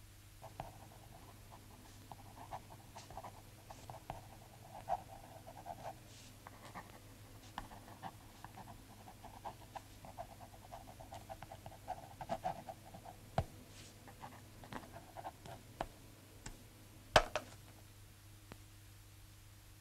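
Faint, uneven scratching and crackling in short runs for about the first twelve seconds, with scattered clicks and one sharper click near the end.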